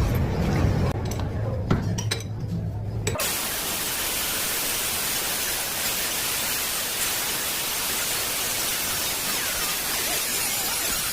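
Steady machine hum with a few metallic clinks for about three seconds, then an abrupt cut to steady, even hiss like static.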